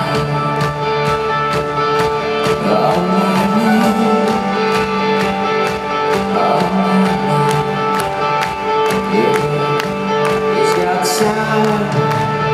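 Rock band playing live in an arena: electric guitars, bass and drums with a steady drum beat, recorded from the audience.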